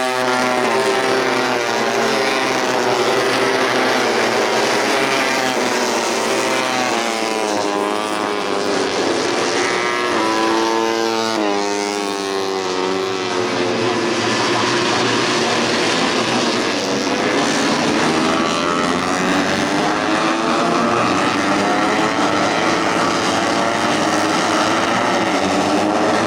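Several tuned 150cc four-stroke underbone racing motorcycles running hard at high revs, their engine notes overlapping and rising and falling in pitch as they accelerate, shift gears and back off for corners.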